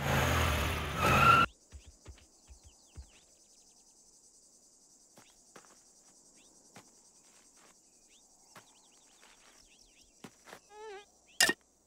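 A loud burst of noise for about the first second and a half, then a faint, steady, high-pitched insect drone with scattered small clicks and chirps. Near the end a mosquito whines with a wavering pitch, followed by one sharp smack.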